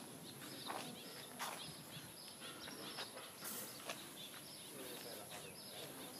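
Faint outdoor ambience with many short, high bird chirps and a thin steady high tone, plus a few clicks and footsteps.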